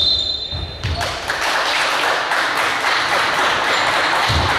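A referee's whistle blown in one long blast that cuts off about a second in, followed by steady crowd noise in the gym with a few ball thuds.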